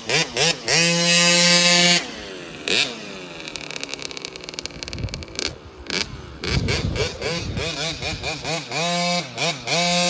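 KTM 50 dirt bike's small two-stroke single-cylinder engine revving as the bike is ridden around a dirt track. It climbs to high revs and holds there briefly about a second in, then drops away and fades. It comes back louder from about six and a half seconds, with quick rising and falling revs near the end as the bike approaches.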